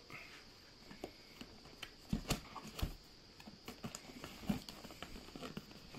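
Hands handling and opening a cardboard box: scattered light taps and scrapes, with two sharper knocks about two and three seconds in.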